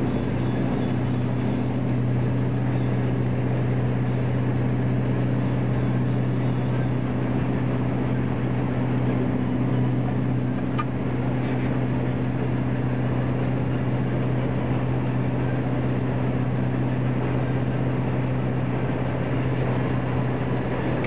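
Lorry engine and road noise heard from inside the cab while cruising on a motorway: a low, even drone that holds the same pitch throughout.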